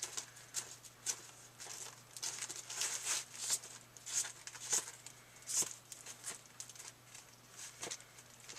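Comic books being rummaged through and handled, their plastic bags and paper crinkling and rustling in short, uneven bursts. A faint steady low hum sits underneath.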